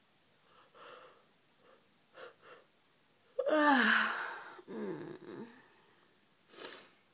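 A woman yawning: soft breaths, then about three and a half seconds in a loud, breathy yawn with a voiced tone that falls in pitch. A shorter voiced trail follows it, and a breath out comes near the end.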